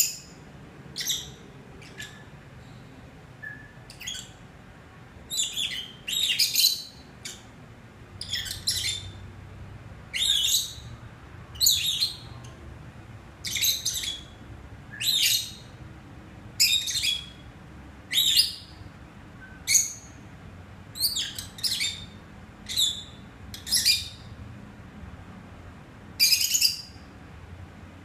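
Peach-faced lovebirds chirping: short, high-pitched calls repeated about every second or two, some coming in quick pairs.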